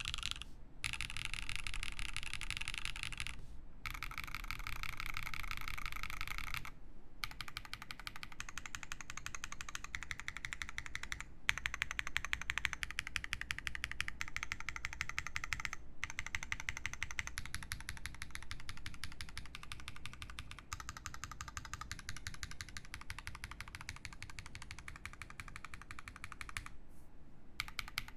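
Fast typing on an Iron165 mechanical keyboard with lubed Zaku switches, a carbon-fibre plate and GMK Beta keycaps. The keystrokes come in a dense, even stream, broken by a few brief pauses, the longest about a second near the end.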